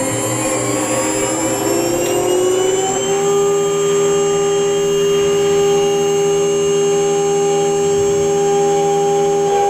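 CNC router spindle whining as it spins up, its pitch rising for about the first three seconds and then holding steady at speed, with the head traversing above the wood blank before it starts cutting.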